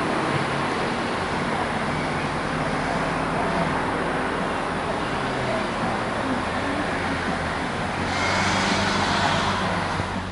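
Steady road and tyre noise of a car driving, with a brief louder swell about eight seconds in.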